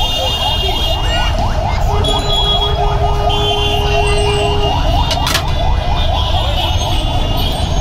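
Street traffic rumble with an electronic siren yelping: a fast warble of rising sweeps, about four or five a second, that fades about six seconds in. A sharp clank about five seconds in.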